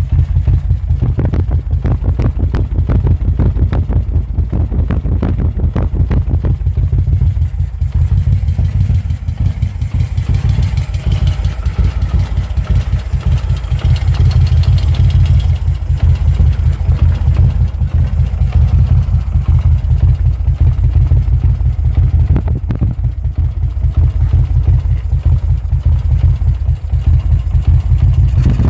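1977 Moto Guzzi T3 California's air-cooled V-twin running at a steady idle through Conti silencers, a low, even exhaust beat.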